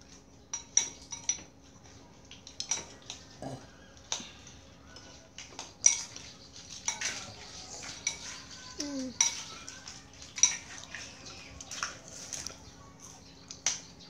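Spoons clinking irregularly against ceramic plates and bowls while eating, in many sharp, ringing clinks.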